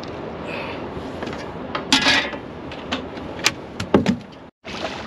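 A few sharp knocks and clicks against a fiberglass fishing boat as a fish is handled and measured, the loudest cluster about two seconds in and another about four seconds in, over a steady hiss of wind. The sound cuts out for an instant near the end.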